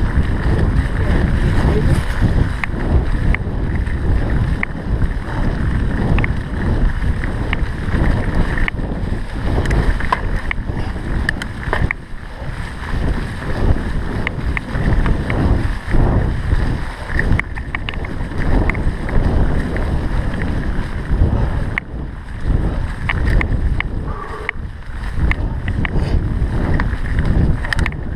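Mountain bike descending a rough singletrack trail: wind rumbling on the camera microphone, with frequent short clicks and rattles from the bike jolting over the ground.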